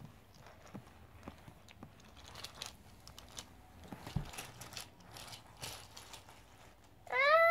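Plastic toy dog with a walking lead clicking and rattling faintly and irregularly as it is handled and pulled along a tabletop. Near the end a loud humming note starts abruptly, sliding up and then holding steady.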